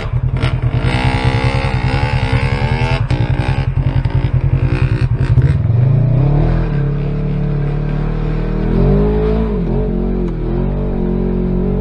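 Off-road engines on a dirt trail. For the first five seconds or so there is a fast, pulsing engine drone, with an engine revving up and down as a dirt bike climbs ahead of a side-by-side UTV. Then a steadier, lower engine drone follows, as heard from inside the side-by-side's cab.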